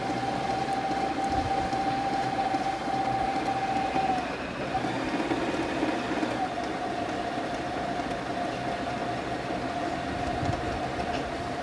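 Electric domestic sewing machine running steadily as it stitches along the edge of silk fabric, its motor giving a steady whine. The whine stops for a moment about four seconds in, then runs on slightly lower and slower from about six seconds.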